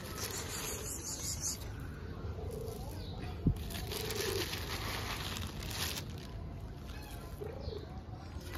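Outdoor street ambience with a steady low rumble: a plastic bag of dry cat kibble rustles while the food is handed out, with one sharp click about halfway. A few short, soft, low coo-like calls sound three times in the background.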